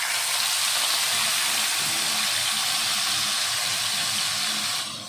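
Blended chili, turmeric, garlic and shallot paste sizzling hard in hot oil in a wok, just after it is poured in. The start of frying the spice paste. The loud steady sizzle drops away abruptly near the end.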